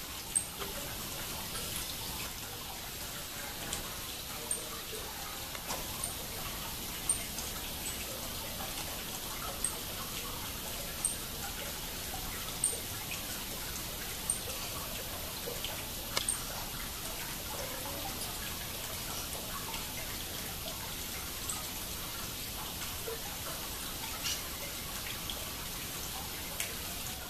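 Steady trickle and splash of water running down a small stone garden cascade. Over it, sharp, very high, short chips come every second or two, thinning out after the first half.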